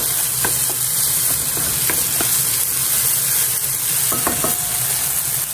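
Diced potatoes and sliced onions sizzling steadily in a nonstick frying pan while a wooden spatula stirs them, with light, irregular scrapes and taps of the spatula against the pan.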